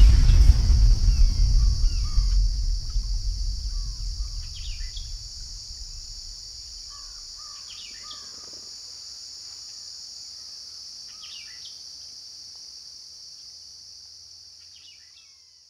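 Outdoor nature ambience: a steady high insect drone with scattered bird chirps. A deep rumble dies away over the first few seconds, and the whole thing fades out near the end.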